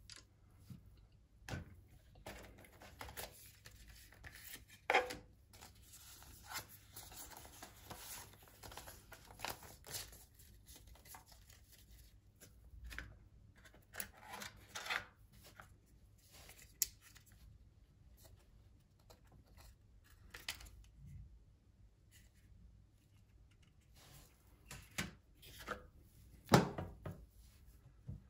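Quiet handling noise from hands moving a smartphone and its accessories: irregular soft clicks, taps and rustles, with a few sharper knocks, the loudest near the end.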